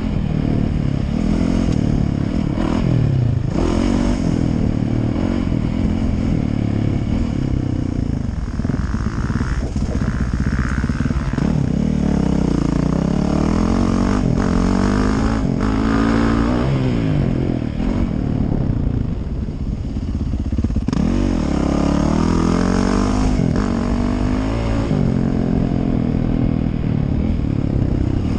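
Yamaha YZ450F motocross bike's four-stroke single-cylinder engine, revving up and rolling off again and again as it is ridden hard along the track, heard from the rider's helmet with wind rushing over the microphone.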